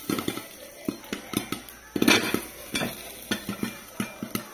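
Popcorn popping in a covered metal pot: irregular sharp pops several times a second as kernels burst and hit the lid, over a faint hiss of hot oil, with a louder burst about two seconds in.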